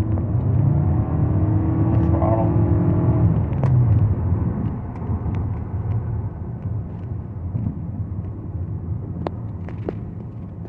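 Cabin noise of a 2024 Toyota Venza hybrid under about half throttle: a low drone of engine and road noise with a steady hum over it for about the first three seconds, then easing off and getting quieter from about four seconds in.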